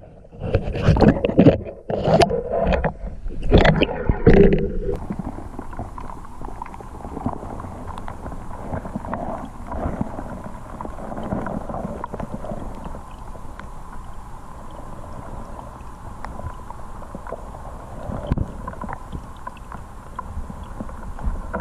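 Stream current heard underwater through a GoPro's waterproof housing: a steady, muffled low rush with faint scattered clicks. In the first few seconds there are loud splashes and knocks as the camera goes under the surface and settles on the gravel.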